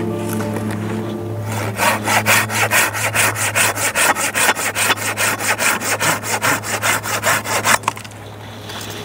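Hand saw cutting through a branch with fast, even back-and-forth strokes, about three a second, starting a second or two in and stopping abruptly near the end.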